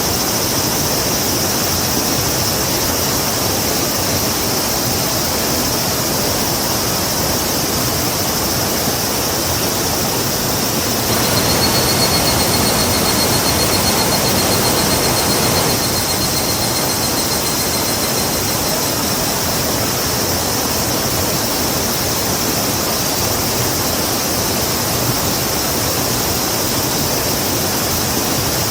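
A river rushing steadily, with a slightly louder stretch for a few seconds in the middle. A faint high, pulsing trill sounds over the water for several seconds near the middle.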